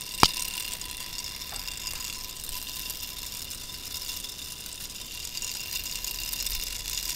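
Small brushless pond-pump motor, running on solar power, spinning fast and driving plastic K'nex gears: a steady whir with a thin constant whine. One sharp click about a quarter second in.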